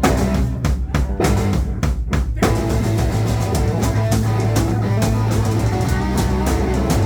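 Live rock band playing, with drum kit, electric guitar and bass. Sharp stop-start hits for the first couple of seconds, then the full band plays on.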